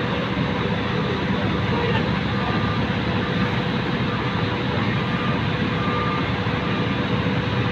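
Steady drone of heavy cargo-handling machinery running during a crane lift, with a constant low rumble and a steady hum over it.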